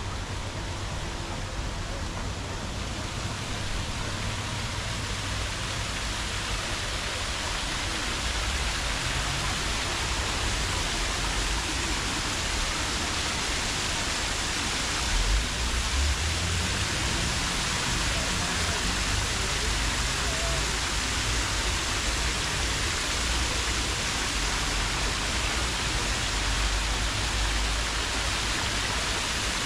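Steady hiss of city street ambience with a low rumble underneath, swelling briefly about halfway through.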